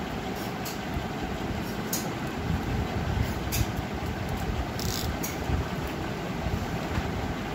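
Steady low background rumble with a few brief rustles and taps as cloth is smoothed and folded on a glass-topped table.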